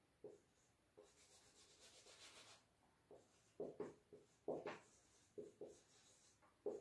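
Marker pen writing on a whiteboard: faint short squeaks and scratches of the pen strokes, coming more often in the second half.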